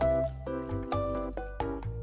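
Background music: a melody of held notes changing about every half second over a bass line, with light percussive ticks.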